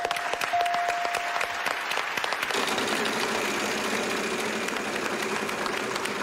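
Studio audience applauding. A steady puzzle-board letter-reveal chime tone sounds early on, about half a second in to just under two seconds in, as a C lights up.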